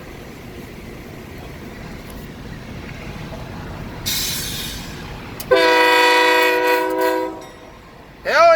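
A multi-chime train air horn sounds a steady chord for almost two seconds, starting about five and a half seconds in, then gives a short toot near the end whose pitch rises and falls. Before the horn a low rumble builds, and a burst of hiss comes about four seconds in.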